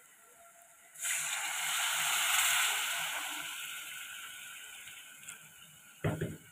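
A splash of water hits hot oil and frying masala (onion, garlic, ginger and ground spices) in the pot. A loud sizzling hiss starts suddenly about a second in and slowly dies away. A brief thud sounds near the end.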